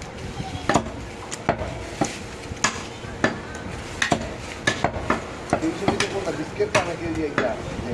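Heavy butcher's cleaver chopping through goat ribs on a wooden chopping block: sharp chops at irregular intervals, roughly one or two a second.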